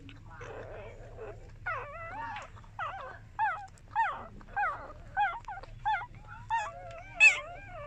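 Newborn puppy whimpering: a run of about ten short, high, squeaky cries, roughly one every two-thirds of a second, the last one louder and higher than the rest.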